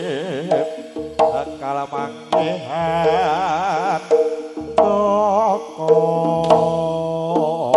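Live Javanese gamelan music for a jaranan performance: a wavering melody with heavy vibrato rides over steady held tones, punctuated by sharp drum and gong strokes.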